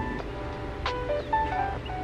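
Background music: a melody of short held notes with a sharp percussive hit about a second in.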